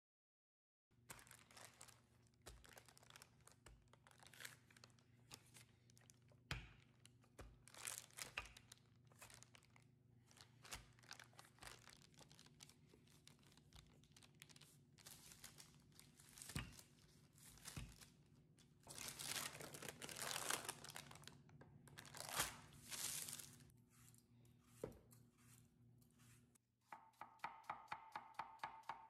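Kitchen handling sounds: parchment paper and plastic wrap crinkling and rustling with scattered knocks of a wooden rolling pin on the counter. Near the end, a knife slices apples against a wooden cutting board in quick, even taps.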